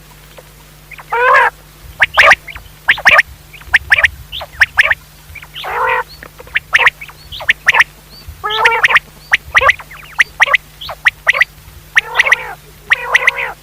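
Common quail calling over and over: quick, sharp, clipped notes mixed with brief harsher rasping calls, several a second. A faint steady hum runs underneath.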